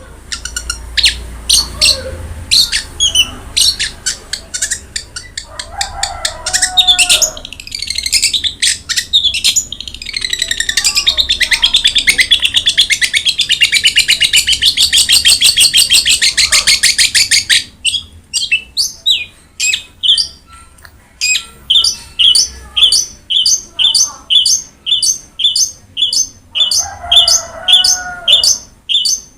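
Long-tailed shrike (cendet) singing a loud, varied song: rapid clicking trills, a harsh unbroken chatter through the middle, then a long run of evenly spaced short notes, about one and a half a second, from about two-thirds of the way in.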